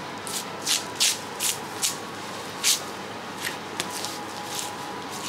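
A butcher's knife cutting through a block of raw wagyu tougarashi, with gloved hands moving the meat: about ten short, crisp swishing strokes at uneven intervals. A faint steady hum runs underneath.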